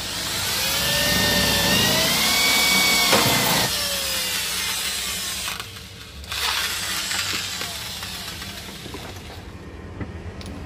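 Electric hand drill boring a hole through the sheet-metal amplifier chassis for a mic socket, its whine wavering in pitch as the bit cuts for about three and a half seconds. After a short pause the drill runs again, a little quieter and fading out.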